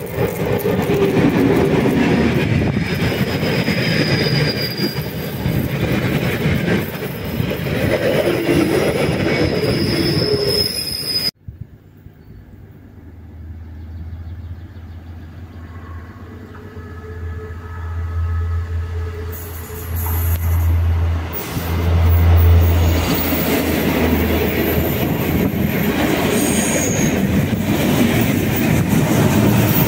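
Class 743 diesel locomotive 743.010 and its train passing close by, with loud rolling noise and high-pitched wheel squeal on the curved track. Then, after a sudden break about eleven seconds in, a diesel engine's low steady hum grows as a second train approaches, and the railcars pass loudly near the end.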